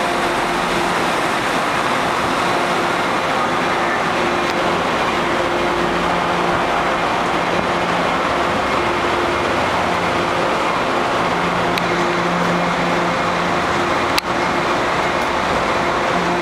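Steady, loud rumble and hiss of an MBTA commuter rail train standing at the platform under the station's train shed. A low hum swells and fades every few seconds.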